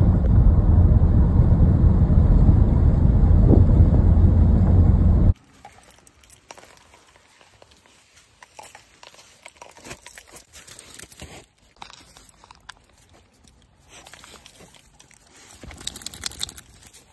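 Loud low rumble of road and wind noise from a car driving along a highway, which cuts off suddenly about five seconds in. After it come faint crunching and crackling steps on packed snow as a dog moves about, a little louder near the end.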